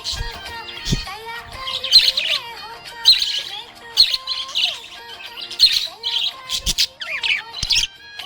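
Budgerigar chirping in quick, repeated bursts of high twittering notes, over background music.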